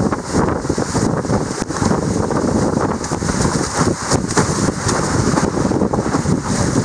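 Heavy wind buffeting the microphone, mixed with water rushing and splashing past a windsurf board sailing fast in a planing breeze.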